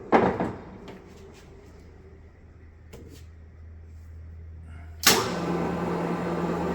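Old Cleereman drill press being shifted into a middle spindle speed: a loud clunk as the speed-change lever goes into gear, a few light clicks, then about five seconds in a sharp clunk and the machine starts running with a steady hum.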